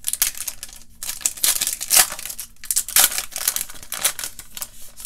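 Foil trading-card pack wrapper crinkling and tearing as it is ripped open by hand, in runs of sharp crackles broken by short pauses.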